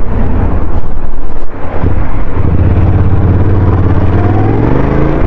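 Motorcycle engine pulling away, its pitch rising steadily from about two and a half seconds in, under heavy wind buffeting on the rider's camera microphone.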